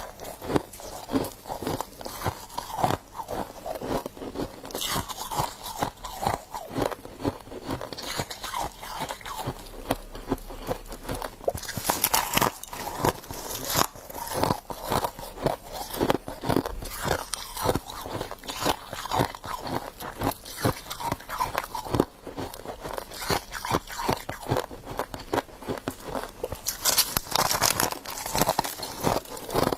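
Close-up crunching and chewing of frost: a person biting into mouthfuls of icy frost with dense, continuous crackling crunches, louder bursts now and then.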